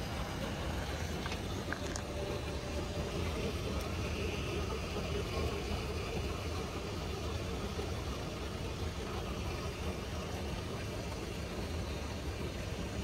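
Steady flight-deck background noise of a Boeing 737 on the ground: an even rush of air with a low hum underneath, and a couple of faint clicks about two seconds in.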